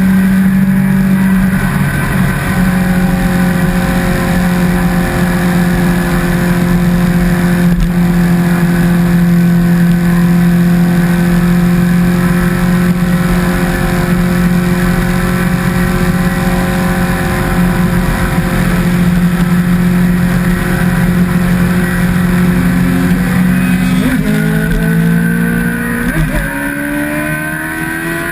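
Sport motorcycle's inline-four engine running at a steady cruising speed, then near the end the revs drop and climb again.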